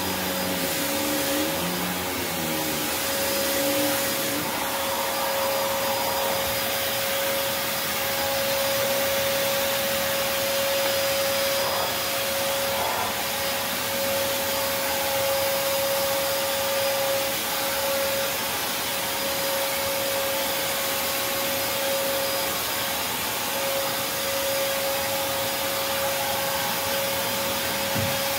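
Prolux X8 Elite backpack vacuum running steadily: a constant motor whine over the rushing hiss of its airflow.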